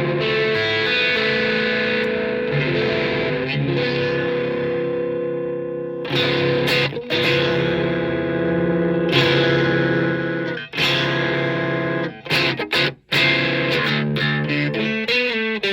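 Electric guitar played through the 1812 Custom Carabinier tube amplifier with a distorted tone: sustained, ringing chords, re-struck a couple of times, then quicker choppy chords with short stops near the end.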